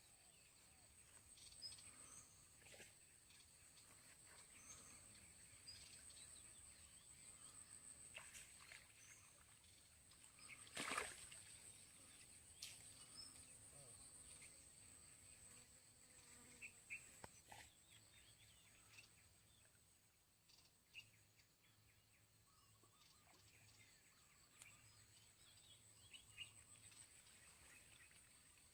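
Faint outdoor ambience: a steady high insect drone throughout with scattered bird chirps and small clicks, and one louder sharp knock about eleven seconds in.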